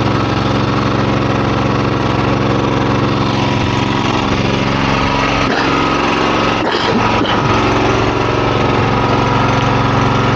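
The 9 hp single-cylinder petrol engine of a Jansen RD 500 tracked mini dumper running steadily.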